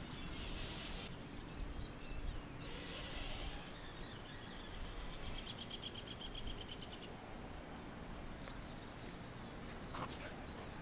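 Outdoor background noise with a steady low rumble, and a high, rapid trill of about seven pulses a second lasting some two seconds midway through. A sharp tick sounds near the end.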